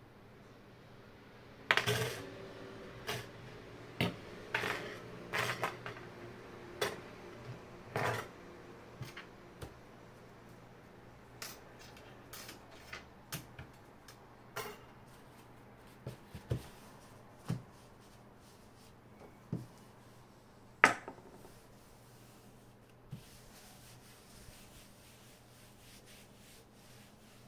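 Small metal tool and other objects handled and set down on a desk: a quick run of clicks and clinks in the first seconds, some ringing briefly, then scattered taps, the sharpest knock about three quarters of the way through. A faint steady hum sits underneath.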